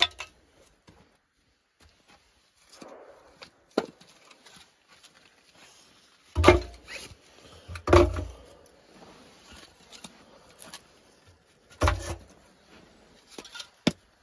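Split birch logs being loaded by hand into a ceramic tandoor on top of kindling: a handful of separate wooden knocks, three of them heavier, with light clatter of wood between.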